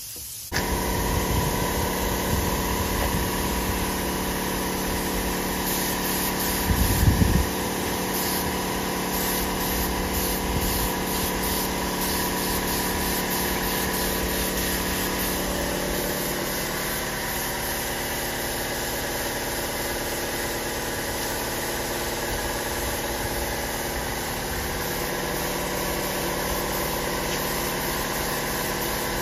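Air compressor kicking on about half a second in and running steadily to feed the spray gun. There is a brief louder low rumble about seven seconds in.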